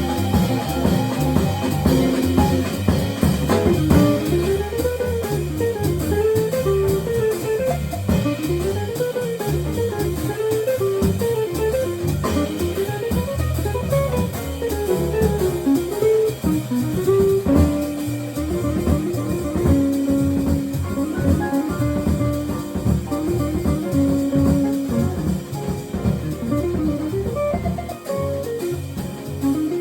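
Jazz quartet of guitar, piano, bass and drums playing, the guitar leading with quick runs of notes that rise and fall, then longer held notes from a little past the middle, over steady drums.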